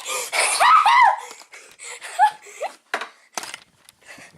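High-pitched giggling in bursts for about the first second, then scattered breathy laughs, a short rising squeak and a few sharp knocks.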